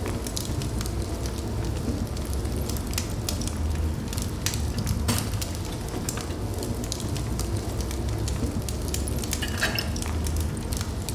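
Fire burning in a fireplace, crackling with frequent sharp pops over a steady low rumble of flame, and a brief hiss about three-quarters of the way through.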